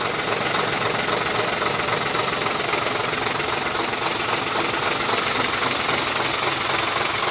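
Mitsubishi Fuso 220 PS truck diesel engine idling steadily. It runs smoothly, without the metallic tek-tek knock of a faulty injection pump timer, the timer having just been repaired.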